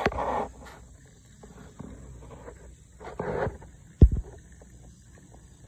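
Domestic ducks giving two short, rough quacks about three seconds apart, with a sharp low knock about four seconds in and faint clicks after it.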